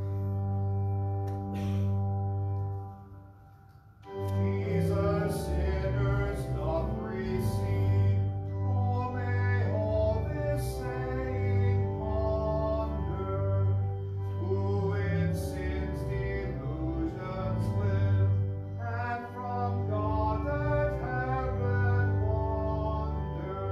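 Church music: a held keyboard chord fades out, and after a short pause singing with keyboard accompaniment begins about four seconds in and carries on.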